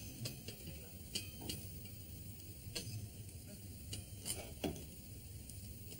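Faint, irregular clicks and light knocks, a few seconds apart, over a low steady hum.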